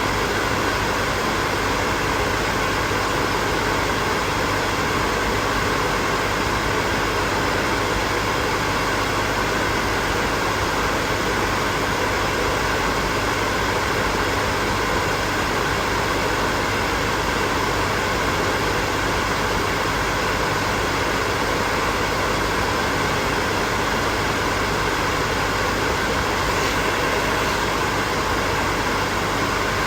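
Hair dryer running steadily: an even rush of blown air with a faint steady hum from its motor underneath.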